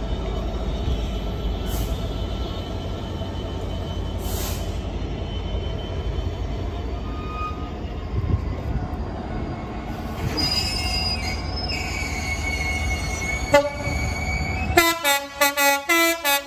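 Container freight train wagons rolling past with a steady deep rumble and thin high wheel squeals, and a sharp knock near the end. In the last second or so, a quick run of short pitched toots.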